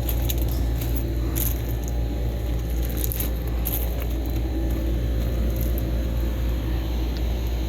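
Outdoor air-conditioner condensing unit, a 2023 Heil Performance with a Copeland scroll compressor, running with a steady low hum from the compressor and condenser fan.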